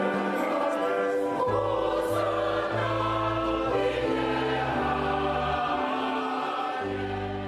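Choral music with sustained held notes over a low bass line that comes in about a second and a half in.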